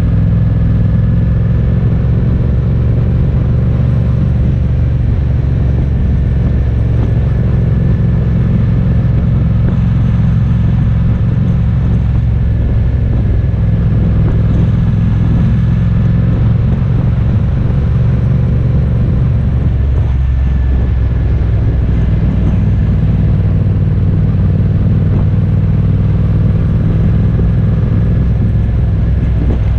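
A motor vehicle's engine and road noise during a ride, loud and steady, holding an even speed with no revving or gear changes.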